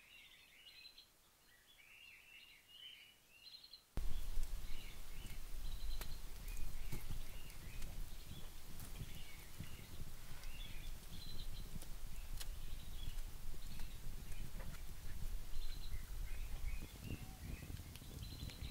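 Wild birds chirping throughout. About four seconds in, a louder steady rumble with scattered sharp crackles sets in, from an open wood fire.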